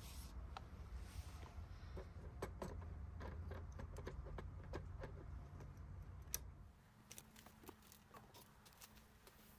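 Small clicks and ticks from a Nikon DSLR being handled on a tripod, its buttons and dials being worked, over a low rumble. About two-thirds through, the rumble and most of the clicking stop, leaving faint scattered ticks.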